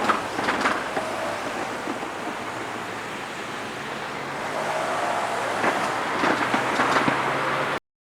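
Kintetsu Nara Line electric train passing over the level crossing: a steady noise of wheels on rail with scattered sharp clicks, louder in the second half, cut off suddenly near the end.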